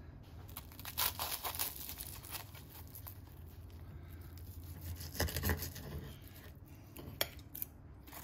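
A knife and fork cutting through flaky puff pastry and steak on a plate: brittle pastry crackling, with cutlery clicks. The crackling comes in a cluster about a second in and again around five seconds, with a sharp click near the end.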